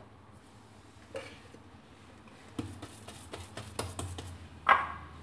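Light knocks and clinks from a heavy frying pan as a ball of semolina harcha dough is pressed flat in it by hand: a cluster of quick taps past the middle and one louder knock near the end.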